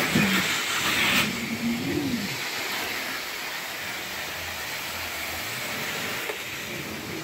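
Carpet-cleaning extraction wand rinsing carpet: a steady rushing hiss of spray and vacuum suction as the wand is drawn across. It is louder in the first second or so, with a wavering hum that rises and falls in the first two seconds.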